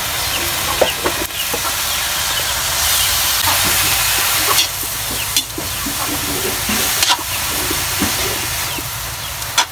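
Sliced mushrooms sizzling and steaming in a large stainless steel wok over a wood fire, the hiss swelling a few seconds in. A metal spatula stirring them scrapes and knocks against the pan now and then.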